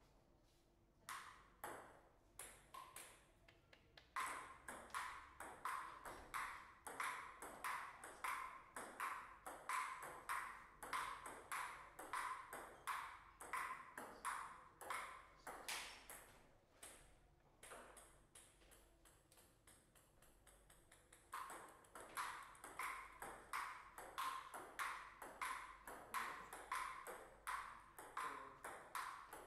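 Table tennis ball clicking back and forth off the rackets and the table in a fast rally, a few scattered bounces first, then a long exchange of sharp pings. Near the middle the clicking stops for a few seconds, and then a second long rally starts.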